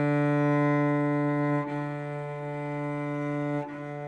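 Cello's open D string bowed in long, steady strokes on one sustained note, with a bow change about a second and a half in and another near the end. Each stroke is quieter than the one before, stepping the volume down as a decibel meter tracks it.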